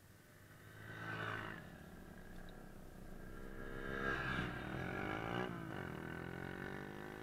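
Sport motorcycle engines revving as the bikes ride by at a distance. The sound swells about a second in, grows louder in the middle, and the engine pitch drops and climbs again about five and a half seconds in.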